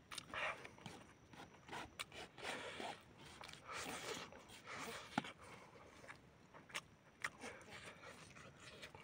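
Close-up eating sounds: a person slurping and chewing noodles, with a plastic fork scraping on a banana leaf. Irregular soft rustles and clicks, with one sharp click about five seconds in.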